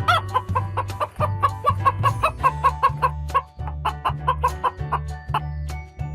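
Chicken clucking in a quick run of short repeated calls, over background music.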